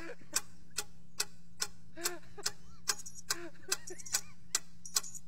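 Background track of steady clock-like ticking, a little over two ticks a second, with short swooping pitched tones over it and a faint steady hum underneath.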